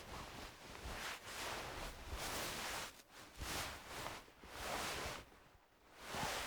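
Clothing fabric rustling and swishing as it is moved, in a series of swells, with a brief lull about five seconds in before another swish near the end.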